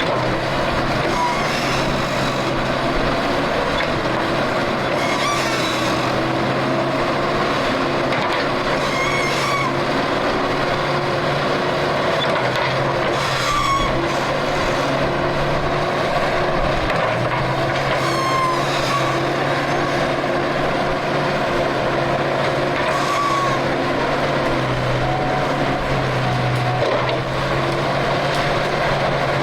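Engine of heavy digging equipment running steadily under load, with a few short high squeaks coming and going.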